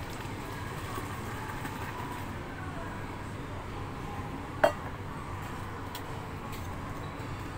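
Steady background noise with a single sharp metallic clink of a stainless-steel mug about halfway through, ringing briefly.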